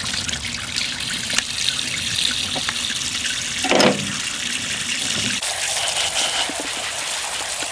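Tap water running steadily into a sink while small shemaya fish are rinsed and their fine scales wash off onto a sieve. The sound of the stream changes about five seconds in, and a short pitched sound comes just before four seconds in.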